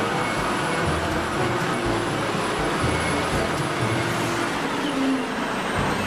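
Caterpillar wheel loader's diesel engine running under load as the bucket digs into and lifts a pile of sand, a steady heavy mechanical noise with a faint high whine over it.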